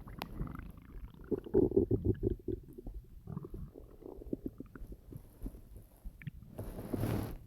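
Hungry stomach growling and gurgling in a run of churning rumbles, loudest about a second and a half in. The person lies half on their belly, which pushes the growls out. A brief hiss comes near the end.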